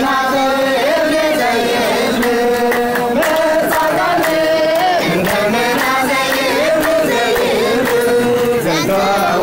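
Music with singing, voices chanting a melody together, over sharp percussive strikes such as drum hits or clapping.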